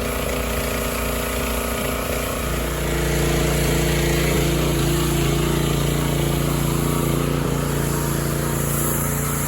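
Small gasoline engine running steadily, most likely a gas pressure washer's engine; about two and a half seconds in it gets a little louder and its tone shifts.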